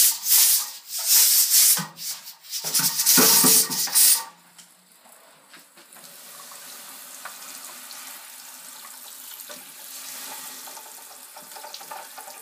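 Loud, uneven spurts of hissing for the first four seconds or so. Then a steady stream of cold tap water runs and splashes over a pressure cooker sitting in a steel kitchen sink, cooling the cooker down after cooking.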